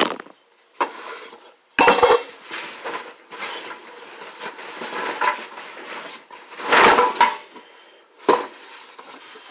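Loose metal ATV parts knocking and clattering against each other, with short metallic ringing, as a piece is pulled out from under a pile. Several separate knocks, the loudest about two seconds in and again about seven seconds in.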